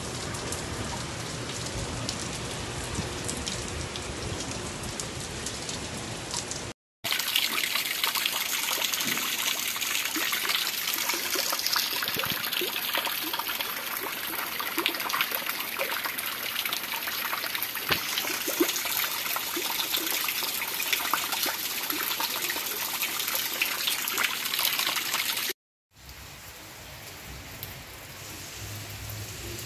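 Rain falling steadily, a dense patter of drops. It drops out twice, briefly about seven seconds in and again near the end, and comes back each time at a different level; the last part is quieter.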